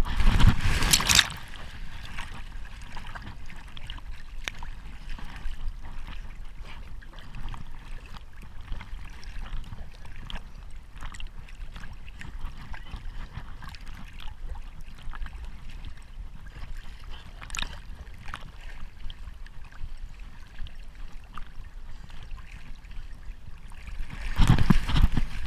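Water splashing and lapping right at the camera as a Labrador retriever swims. There is a louder splash about a second in, steady small splashes and trickles while it paddles, and louder splashing again near the end as it comes into the shallows.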